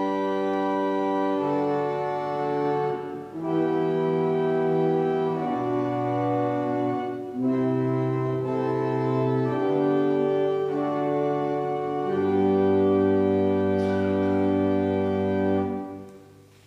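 Church pipe organ playing a slow sequence of sustained chords that change every second or two. It ends on a long held chord that stops near the end.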